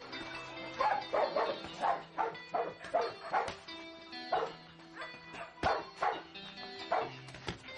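Music: an instrumental stretch of a song with held notes and short, sharp pitched sounds repeating two or three times a second.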